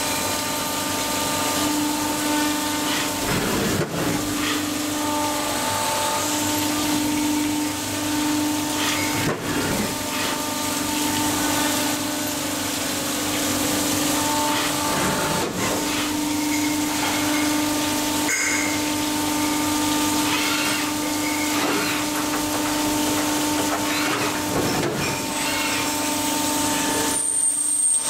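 Industrial metal-cutting machine running steadily as it machines the ends of clamped deformed steel reinforcing bars under coolant spray: a constant hum with a hiss and occasional sharp clicks. Near the end the low hum drops away.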